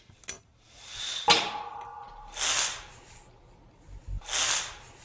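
A water drop falls into water about a second in, making one sharp plink that leaves a ringing tone. Two soft hissing whooshes swell and fade after it.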